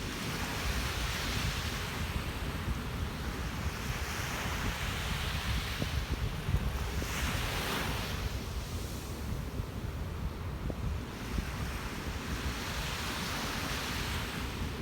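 Ocean surf breaking on a beach, its hiss swelling and falling back every few seconds, with wind buffeting the microphone in a low rumble underneath.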